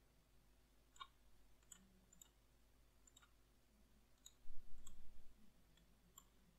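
Faint computer mouse clicks, a handful scattered over several seconds, with a brief low rumble about four and a half seconds in.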